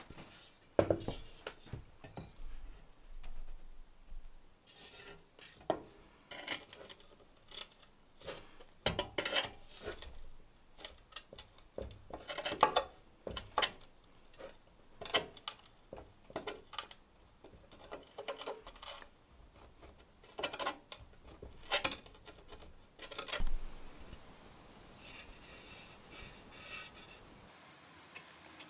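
Irregular metallic clinks, knocks and scrapes of a steel rod worked against the thin steel brim of an old helmet as its dents are straightened. A short stretch of softer scraping comes near the end.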